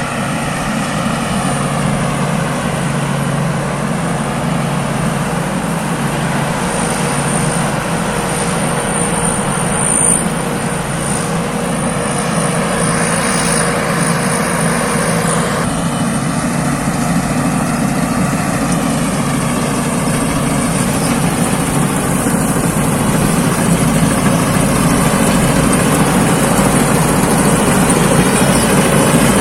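Rice combine harvester running steadily under load, its engine a constant low hum with a thin high whine above it; the sound shifts a little about halfway through.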